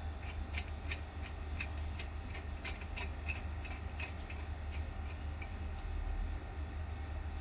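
Light, irregular metallic clicks, a few a second, as a flow meter's threaded fitting is turned by hand onto the Y-piece of an oxygen cylinder regulator. The clicks stop about five and a half seconds in. A steady low hum runs underneath.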